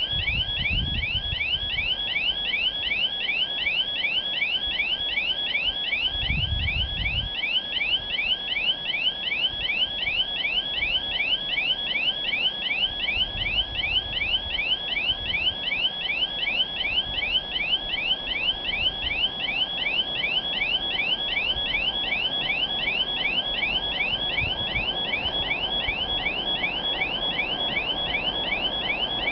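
Level crossing warning signal sounding: an electronic chirping tone repeating rapidly and evenly, warning that a train is approaching. Wind thumps on the microphone a few times.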